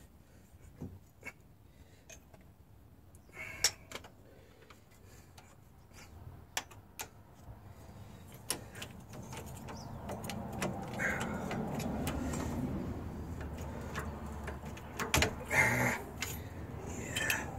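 Scattered metal clinks and taps from hand tools and press fixtures being handled and set on the ball joint press frame, with a louder cluster of knocks near the end. A low steady rumble swells in the middle.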